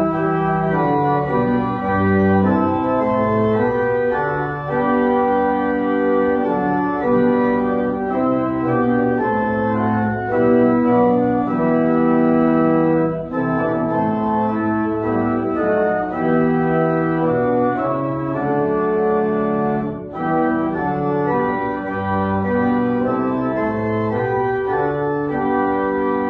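Organ playing instrumental music in full, sustained chords that change about every second, with short breaths between phrases.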